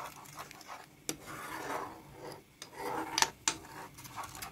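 A metal spoon stirring and scraping a milk-and-cream topping in a nonstick pan as it cooks to thicken, with a few sharp clicks of the spoon against the pan.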